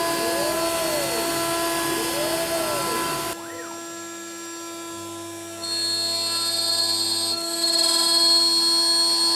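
CNC router spindle milling aluminum with an 8 mm single-flute end mill: while clearing a round pocket the cutting pitch rises and falls in an arc about every two seconds. The sound changes abruptly about a third of the way in, goes quieter, then about two-thirds in the cutter takes a heavier cut at the plate's edge with a loud, high, steady whine.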